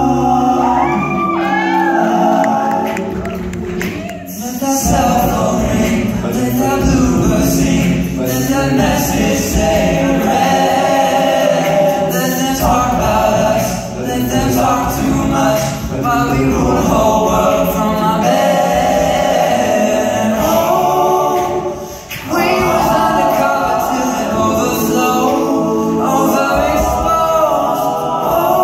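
Male a cappella group singing through microphones and a stage sound system: a lead voice over close backing harmonies, all sung with no instruments.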